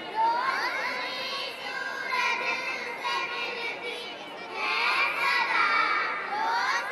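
Two young girls singing together into a microphone, their voices sliding up into held notes.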